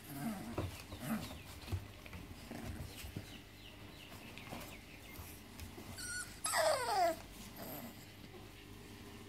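Five-week-old Staffordshire bull terrier puppies making small noises as they play-wrestle, then one loud yelp about two-thirds of the way through whose pitch slides steeply down.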